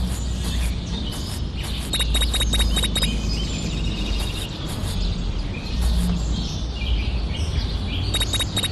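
Clusters of short, high bird-like chirps, the same pattern coming twice about six seconds apart, over a steady low rumble.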